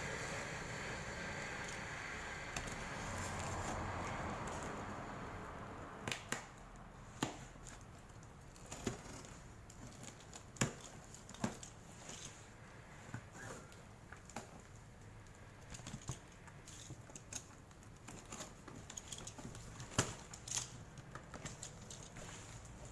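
Scattered, irregular clicks and taps of a parcel being handled and opened, with a background noise fading away over the first few seconds.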